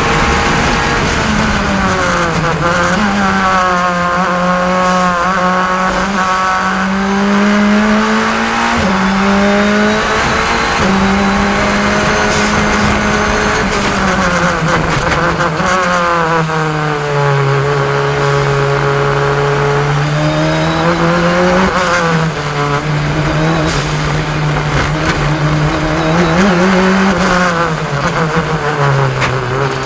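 Radical SR10's turbocharged four-cylinder race engine running hard around the track, its pitch rising, stepping and falling again and again with the gear changes and corners.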